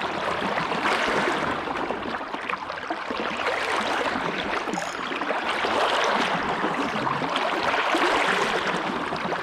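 Fast-flowing creek running high, its water rushing and splashing around the legs of someone wading across against a powerful current.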